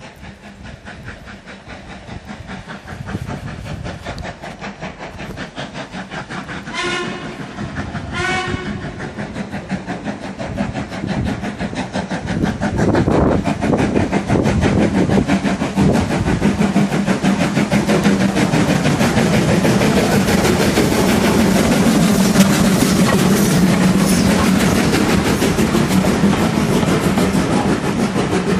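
Ivatt Class 2MT 2-6-2T steam tank locomotive No 41241 sounds two short whistle blasts about a second and a half apart, then approaches with a steady chuffing exhaust beat that grows louder as it passes. Its coaches follow, their wheels clattering over the rail joints.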